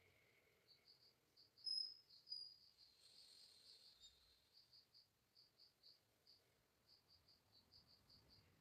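Near silence with faint cricket chirping: short high chirps repeated several times a second. Two brief, louder high chirps come about two seconds in.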